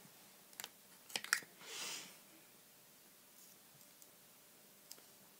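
A few sharp plastic clicks of lipstick tubes being picked through and handled, with a short rustle about two seconds in and one more click near the end.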